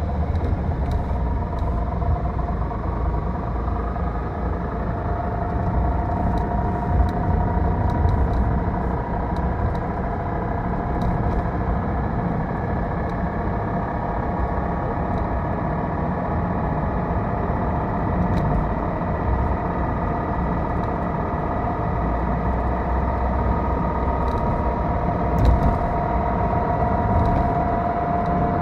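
Honda N-ONE under way, with road and engine rumble and a whine made of several tones that drift slowly up and down in pitch as the car's speed changes. The whine comes from inside the CVT: an internal transmission fault, not a hub bearing.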